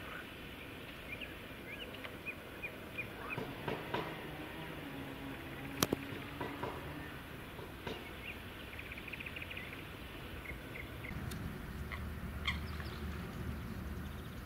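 Outdoor lakeside ambience with short, high bird chirps scattered throughout, a single sharp click about six seconds in, and a low rumble that comes in during the last few seconds.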